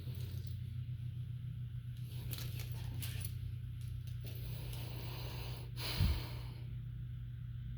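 Kittens playing with a bird toy: scattered light clicks and rattles about two to three seconds in, then a single thump about six seconds in, over a steady low hum.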